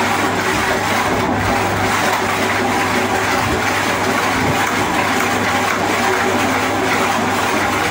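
Machinery running steadily in a workshop: a constant rushing noise over a low, even hum.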